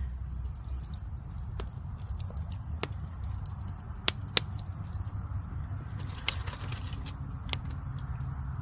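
Wood campfire crackling: about half a dozen sharp pops spread out over a low, steady rumble.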